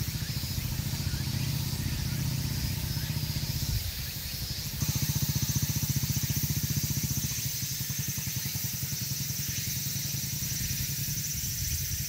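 Honda Monkey's small single-cylinder four-stroke engine running steadily as the bike rides across grass, dipping briefly about four seconds in and then easing off gradually as it moves away.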